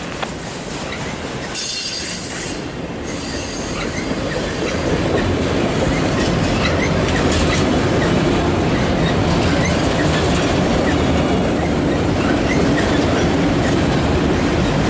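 CSX freight train of autorack cars passing close by: a steady rumble and rattle of steel wheels on the rails, growing louder about four seconds in.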